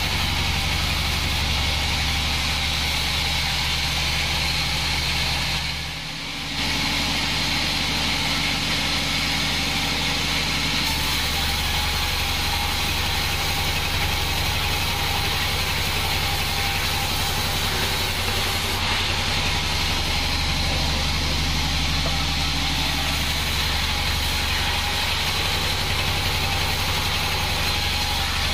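Homemade band sawmill running steadily as its vertical blade cuts lengthwise through a log, a constant machine drone with a low hum. The sound drops briefly about six seconds in, then carries on unchanged.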